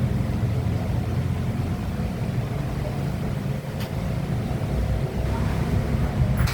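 A running air conditioner: a steady low rumble with a faint hum, broken by two short clicks, one a little past the middle and one at the end.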